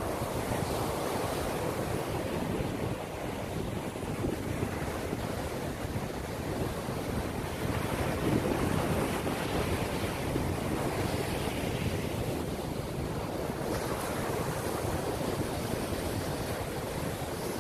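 Ocean surf breaking steadily on a sandy beach, with wind rumbling on the microphone.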